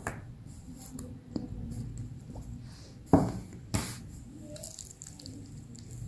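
Pink glitter slime squeezed and kneaded by hand, making soft wet squishing with scattered small clicks. Two sharp, louder pops come a little past three seconds in and again just before four seconds.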